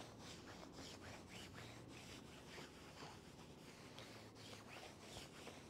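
Faint, repeated soft rubbing of a small iron sliding back and forth over a cotton quilt block.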